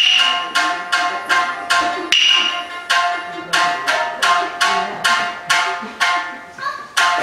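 Shamisen plucked with a plectrum, playing a steady run of sharp, ringing notes at about three a second: the opening accompaniment of a rōkyoku piece, before the narrator begins.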